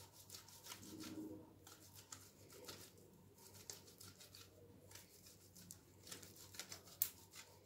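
Boiled potatoes being grated on the coarse side of a hand grater: faint, repeated scraping strokes, about three a second, with one sharper click near the end.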